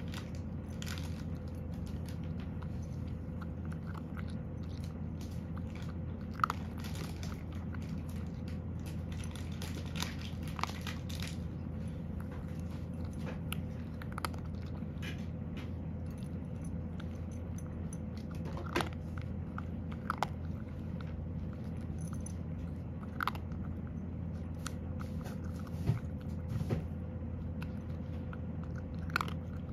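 Cat chewing dry kibble, with scattered crunches every few seconds over a steady low hum.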